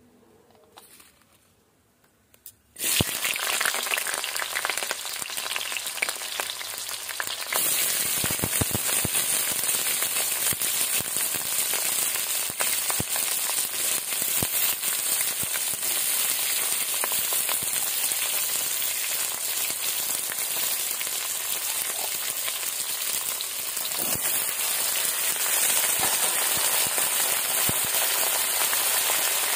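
Sliced onions and other chopped vegetables (tomatoes, capsicum, garlic, ginger) sizzling as they fry in hot mustard oil in a kadai, with scattered crackles. The sizzle starts suddenly about three seconds in, grows fuller a few seconds later and then holds steady.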